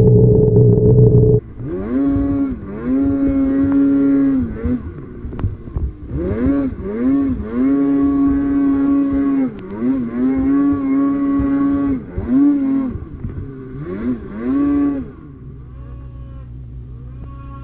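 Snowmobile engine revving up and down again and again as the sled is ridden through deep powder snow, with several long holds at high revs. It runs steadily at first, and near the end it falls back to a quieter low hum.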